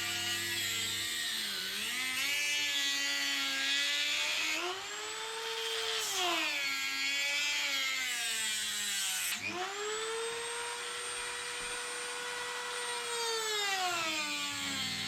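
Dremel rotary tool with a small cutting disc grinding a groove into the inner race of a triple-clamp steering bearing. Its high motor whine sags in pitch and recovers again and again as the disc is pressed into the metal and eased off.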